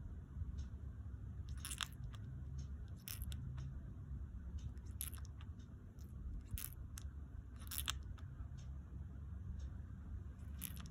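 Lovebirds grinding their beaks as they settle to sleep: scattered short crunchy, scratchy clicks every second or two, over a steady low hum.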